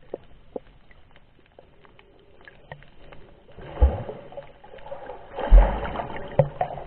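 Muffled underwater sound picked up by a camera held below the surface while snorkelling: water sloshing and gurgling, with scattered small clicks at first. The sound grows from about four seconds in, with low thuds, the heaviest a little past five seconds.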